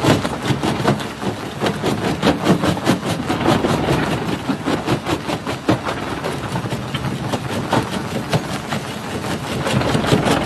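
Jaw crusher breaking rock: a dense, irregular run of sharp cracks and knocks, several a second, over the machine's steady running noise.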